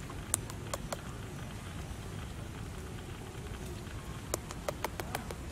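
Scattered sharp crackles and clicks, a few about half a second in and a cluster near the end, over a steady low outdoor rumble.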